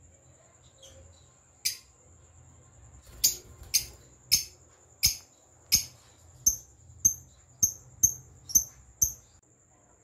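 Lovebirds giving a series of short, shrill chirps: one, then about eleven more at roughly half-second intervals, over a faint steady high tone.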